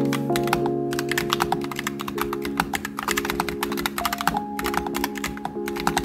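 Fast, continuous typing on an RK typewriter-style mechanical keyboard with round keycaps: a dense stream of sharp key clicks. Background music with held notes plays under it.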